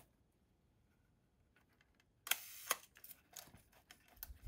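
Nikon S rangefinder's cloth focal-plane shutter fired at a slow speed: a sharp click, about half a second of the slow-speed escapement buzzing, then the closing click, followed by a few faint clicks. The shutter is freshly overhauled with new curtains and running properly.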